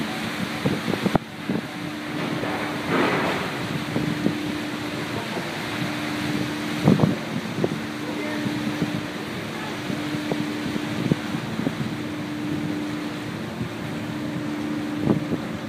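Steady low machinery hum from the docked car ferry Confederation, with wind buffeting the microphone and a few short knocks.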